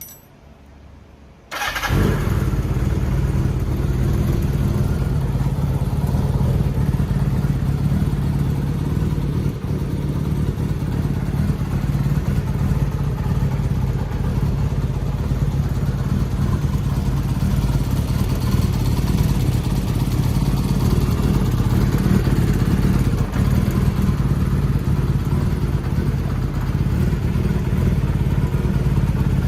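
Kawasaki Zephyr 750 air-cooled inline-four motorcycle engine starting suddenly about a second and a half in, then idling steadily.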